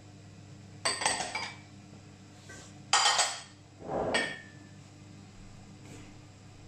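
Pots and pans clinking: three sharp metallic clinks with a short ring, about one, three and four seconds in, over a low steady hum.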